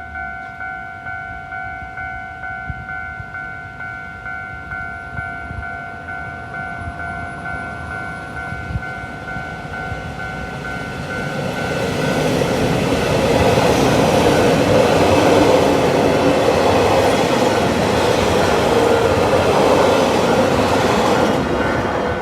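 Japanese railway level-crossing warning bells ringing in a steady repeating pattern. About eleven seconds in, a train arrives and passes over the crossing: loud rolling wheel noise with clickety-clack that drowns the bells. The train noise drops away near the end, leaving the bells still ringing.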